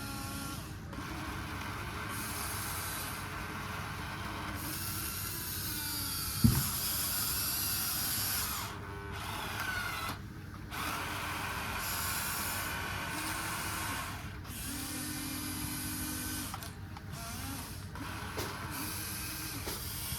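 Small electric motors and gearboxes of radio-controlled construction models whirring, starting and stopping as they work, with a sharp knock about six seconds in.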